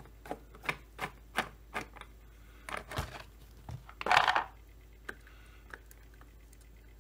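A run of sharp clicks, about three a second, then rustling and a louder scrape about four seconds in, with a few more clicks after: the chainsaw's top cover being unfastened and lifted off.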